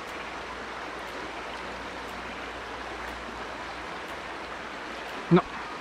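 River water flowing steadily, with one brief loud sound a little past five seconds in.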